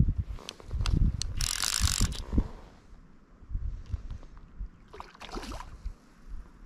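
Fly reel's click-and-pawl ratchet rasping as line is pulled off the spool, in a run about a second and a half in and a shorter one about five seconds in, with a few separate clicks before. Wind rumbles on the microphone.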